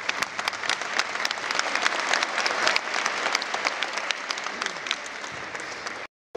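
Audience applauding, many hands clapping at once, thinning out after about five seconds; the sound cuts off abruptly near the end.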